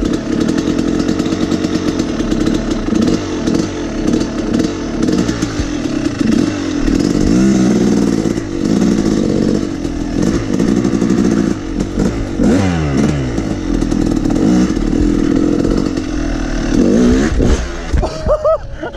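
Yamaha YZ250 two-stroke dirt bike engine revving up and down as it is ridden, heard on board the bike.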